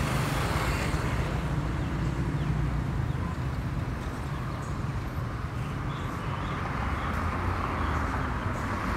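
Boeing 737-800 airliner's CFM56 jet engines heard from the ground as it flies over at altitude: a steady, distant rumble.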